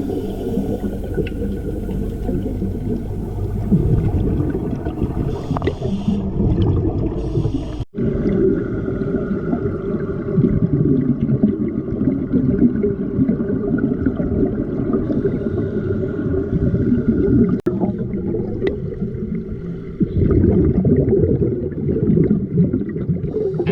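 Underwater sound picked up by a diver's camera: a low, muffled rush of water with gurgling and bubbling. It drops out briefly twice, near 8 seconds in and just before 18 seconds.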